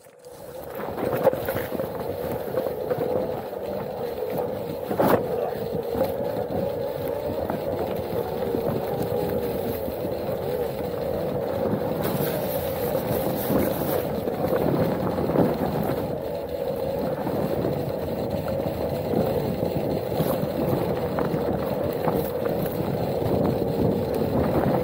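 Onewheel's hub motor whining at a steady, slightly wavering pitch while it rides over rough trail, with a rumble from the ground and occasional sharp knocks from bumps.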